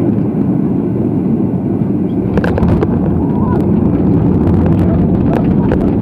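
Boeing 737-300 touching down, heard from the cabin over the wing: a loud, steady rumble of its CFM56 turbofans and rushing air, with a few sharp knocks about two and a half seconds in as the main wheels meet the runway and the ground spoilers deploy. The rumble then grows a little heavier as the jet rolls out on the runway.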